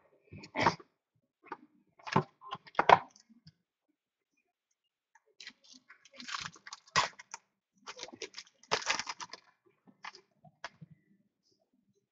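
A trading-card box and its foil-wrapped pack being handled and opened: scattered clicks and taps, with short bursts of crinkling foil about six and nine seconds in.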